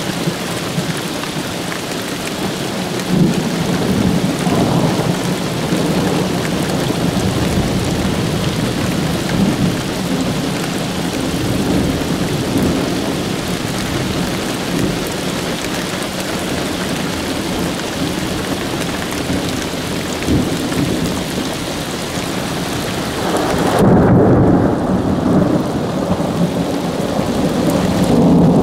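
Steady rain with rumbling thunder during a thunderstorm. A louder, deeper roll of thunder swells near the end, and the hiss of the rain drops away under it.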